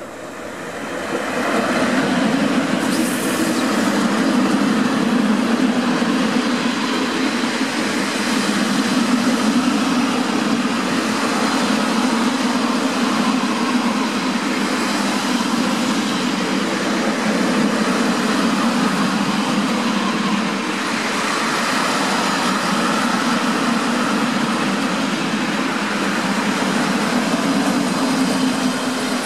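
PKP ET22 six-axle electric freight locomotive passing close by, followed by a long coal train of open wagons rolling past at speed. The noise swells over the first two seconds as the locomotive arrives, then holds as a steady, loud run of wheels on rail.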